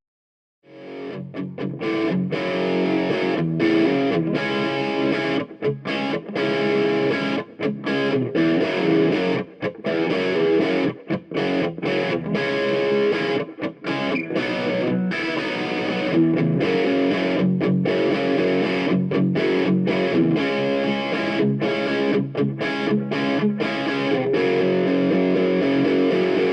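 Outro music: distorted electric guitar rock, starting about half a second in after a brief silence.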